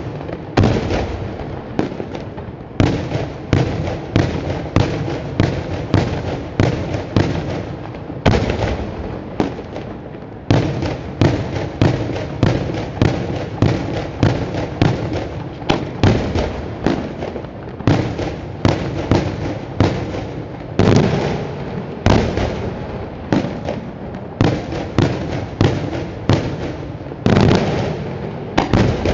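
Daytime fireworks fired from a barge: a rapid, continuous barrage of shell bursts, about two to three bangs a second, each trailing an echo, with only a few short gaps.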